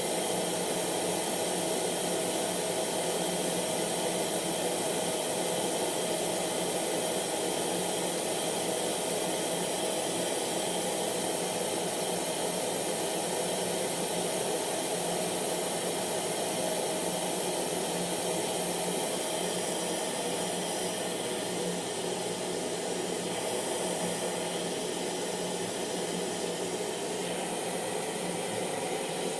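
Hair dryer running steadily, a constant rush of blown air over a motor hum with faint steady tones.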